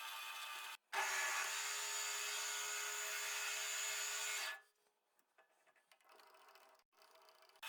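A tool working wood with a steady rubbing sound, cut off abruptly just before a second in, resuming, and stopping about four and a half seconds in, after which it is near silent.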